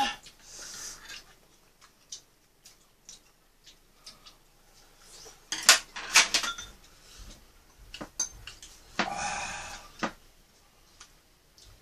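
Chopsticks and spoons clinking against a frying pan, bowls and a metal tray. There are scattered light clicks, a quick run of sharper clinks about six seconds in, and a noisy scrape lasting about a second near the end.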